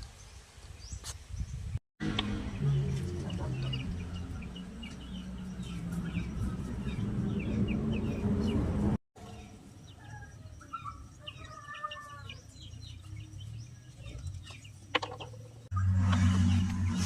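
Background music with steady low notes, with birds chirping and warbling throughout. The sound drops out to silence twice, about two seconds in and again about nine seconds in.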